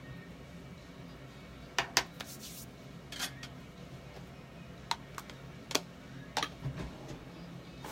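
A scattering of sharp plastic clicks and taps, about nine over several seconds, as makeup cases and a brush are handled.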